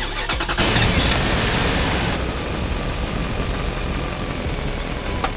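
Homemade RC truck's geared electric drive motor running with a steady, buzzy mechanical noise as the truck drives. The sound changes abruptly about half a second in and again near two seconds, and there is a sharp click near the end.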